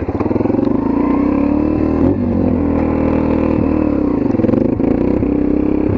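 Motorcycle engine, likely a dirt bike, fires up abruptly and runs with small rises and dips in revs.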